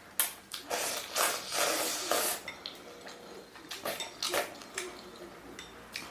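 Tableware clinking against a bowl during a meal of dumplings and instant noodles: a few sharp clicks and knocks, with longer noisy bursts in between.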